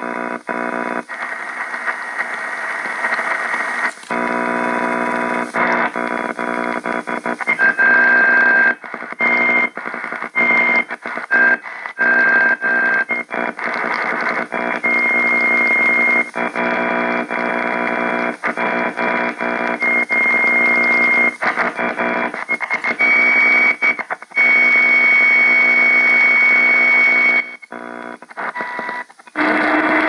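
AM radio being tuned across the band: buzzing static with high whistle tones that come and go. The sound drops out and cuts back in many times as the dial moves.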